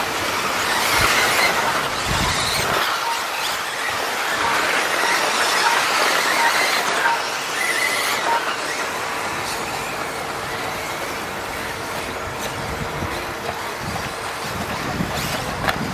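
Several 4WD electric RC off-road buggies with 13.5T stock brushless motors racing, a shifting mix of high motor whines and squeals.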